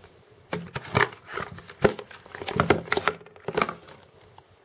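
Hands handling a white cardboard gift box and its paper contents: a run of short taps, scrapes and paper rustles, starting about half a second in and dying away near the end.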